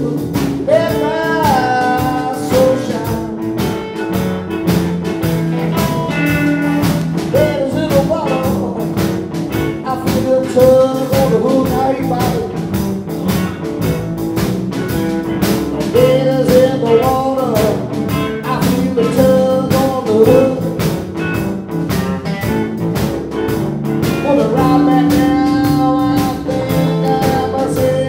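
Live electric blues band playing: an electric guitar lead with bent, sliding notes over electric bass and a drum kit keeping a steady beat.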